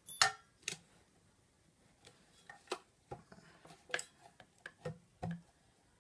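A dozen or so light, irregular metal clicks and taps from hand tools working the top off a Numatic vacuum motor unit, the clearest just after the start.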